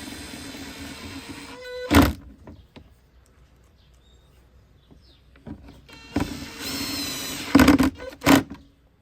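The VW Passat door's electric window motor runs with a steady whine and stops with a thump as the glass reaches the end of its travel; after a pause of a few seconds it runs again briefly and ends in two thumps.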